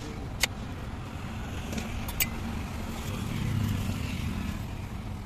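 Steady road-traffic rumble with a vehicle swelling past about three and a half seconds in. Two sharp clinks of a steel spoon against steel spice tins and a bowl.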